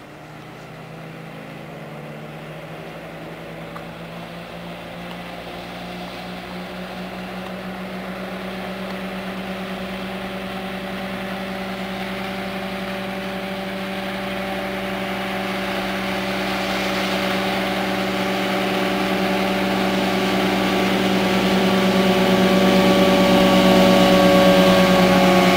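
Vintage wooden motorboat's engine running steadily at speed, growing steadily louder as the boat approaches. From about two-thirds of the way in, the hiss of the hull cutting through the water rises with it.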